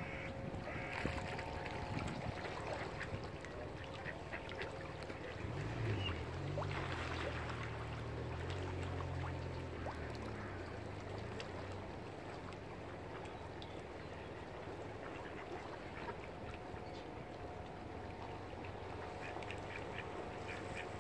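Mallard ducks quacking, with a low droning hum for several seconds in the middle.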